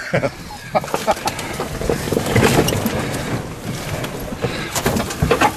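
Polaris Ranger EV electric utility vehicle crawling over creek-bed rock: tyres rolling over rock and gravel, with repeated knocks and rattles from the body and suspension throughout.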